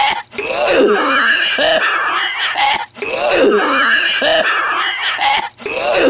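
A man's raspy, hacking smoker's cough and wheeze, with strained voiced sounds that rise and fall in pitch. The same burst of about two and a half seconds repeats over and over, each broken off by a brief gap.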